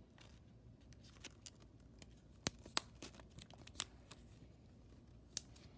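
Cut strips of a plastic zip-lock bag being handled and pressed together: faint crinkling with a few scattered sharp clicks.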